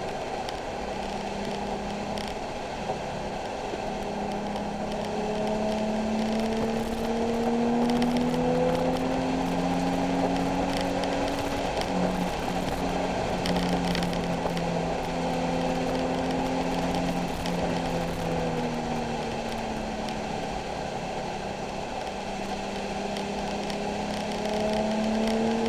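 Nissan 370Z's V6 engine running under load on track, over steady road and wind noise. Its pitch rises as the car accelerates, holds, falls as it slows, and rises again near the end.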